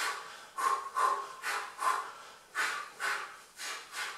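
A man's short, forceful exhalations, about two to three a second, each one timed to a shadowboxing punch, elbow strike or uppercut during a high-intensity workout.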